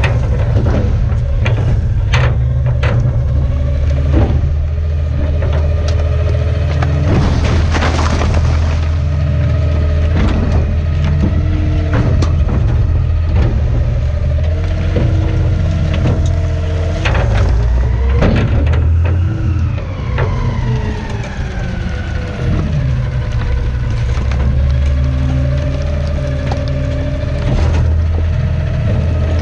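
Garbage truck running: a steady low engine rumble under a pitched mechanical whine, with scattered knocks and thumps. About two-thirds of the way through, the whine and the engine fall in pitch for a few seconds, then settle again.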